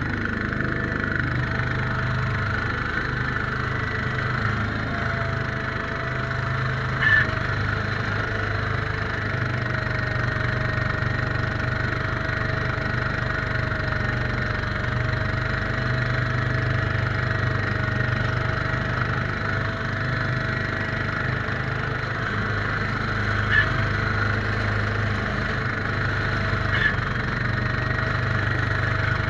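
Case 442 garden tractor's engine running steadily while its front-mounted snowblower throws snow, heard from inside the tractor's cab, with a steady whine over the engine. Three short sharp clicks stand out, about seven seconds in and twice near the end.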